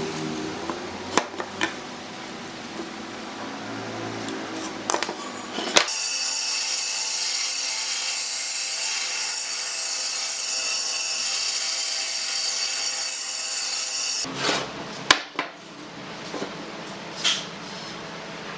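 Band saw running and cutting a pine board, a steady high-pitched whine for about eight seconds in the middle. Before and after it, light knocks and taps of wood pieces being handled on the workbench.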